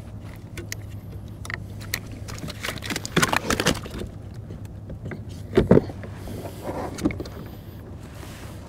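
Scattered knocks and rattles of a small tautog being handled and unhooked over a plastic fishing kayak's deck, the loudest clusters about three and five and a half seconds in, over a steady low hum.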